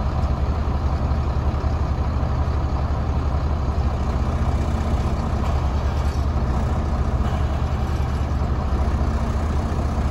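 1996 International 4700LP tow truck's engine idling steadily, with an even, low hum.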